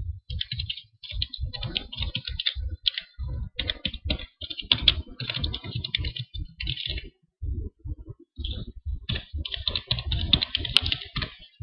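Typing on a computer keyboard: quick runs of keystrokes broken by brief pauses, the longest about a second long a little past the middle.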